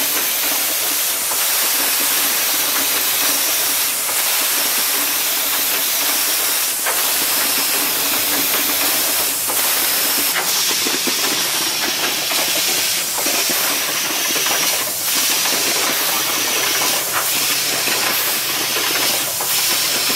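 Automatic switch assembly machine running: a steady loud hiss with short sharp clicks of its pneumatic stations every two to three seconds.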